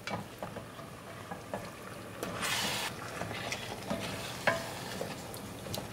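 Black spatula stirring a chunky chicken, carrot and potato curry in an enamelled cast-iron pot, with small scrapes and clicks against the pot over a light sizzle from the hot pan. There is a brief, louder hiss about two and a half seconds in.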